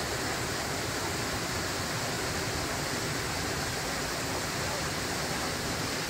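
Rain-swollen stream in spate, fast white water rushing down a rocky channel: a steady, even rush of water.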